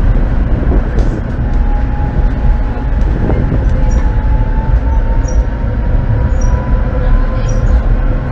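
Tram running along its track, with a steady rumble of wheels on rails and a faint whine that slowly rises in pitch. Faint high ticks and squeaks come through in the second half.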